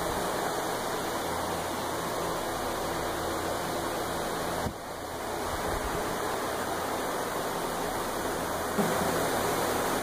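Steady rushing noise with a faint low hum underneath, dipping briefly a little before halfway and then coming back.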